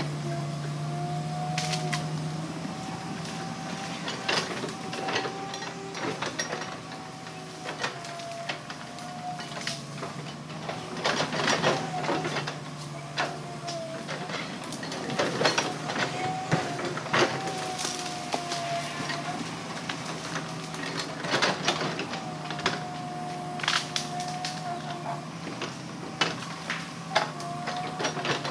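Heavy logging machinery running, its diesel engine holding a steady drone with a wavering whine above it, broken by frequent irregular metallic clanks and knocks.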